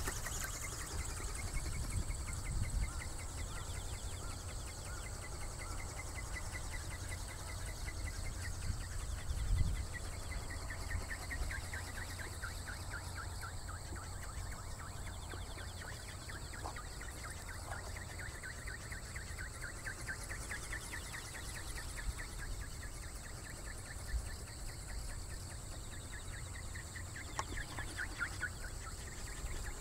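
The ornithopter's flapping drive buzzing in flight: a rapid pulsing whose pitch slowly sinks and rises again, over wind rumbling on the microphone and a faint steady high whine.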